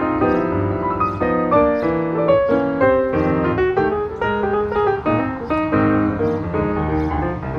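Background piano music: a melody of short notes over lower notes.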